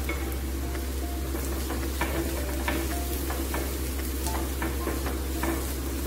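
Chopped onions, green chillies and spices frying in oil in a nonstick kadai, sizzling steadily while a spatula stirs and scrapes the pan in repeated short strokes.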